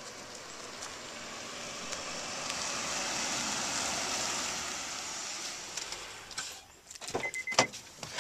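A minivan drives past on a paved driveway, its engine and tyre noise swelling and then fading. Near the end come clicks and knocks as the driver's door opens, and the car's warning chime beeps.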